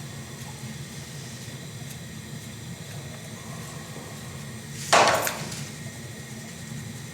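A single loud, sharp knock about five seconds in, ringing out briefly, over a steady low hum.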